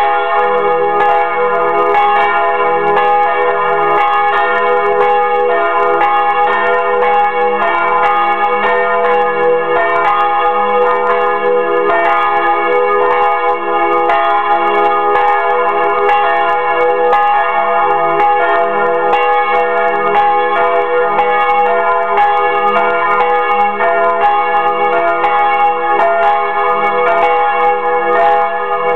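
Two swinging bronze church bells, a large Fremy bell and a smaller Bachert bell, ringing together close up in a wooden bell frame, their clapper strikes overlapping in a continuous, loud peal. This is the ringing-in of Sunday on Saturday evening.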